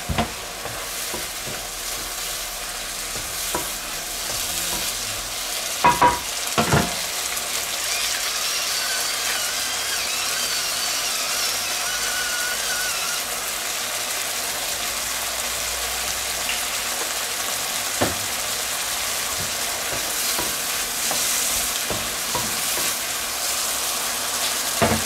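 Sliced mushrooms and onions sizzling steadily as they fry in a wok. There are a few sharp knocks about six seconds in, once midway and again near the end.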